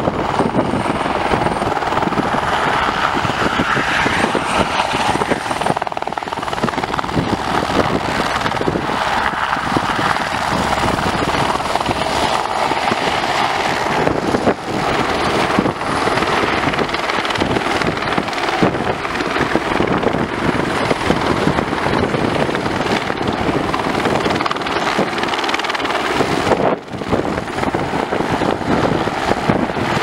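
Eurocopter AS350B3 helicopter taking off and flying low: the chop of its three-blade main rotor over its single turboshaft engine, steady throughout, with brief dips about halfway and near the end.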